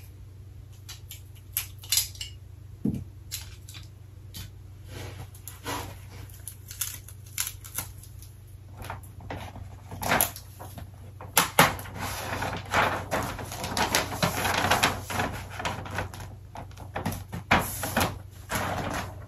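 Gift-wrapping paper rustling and crinkling as it is folded and pressed around a box, with scattered handling clicks and taps. The rustling is busiest about two-thirds of the way through.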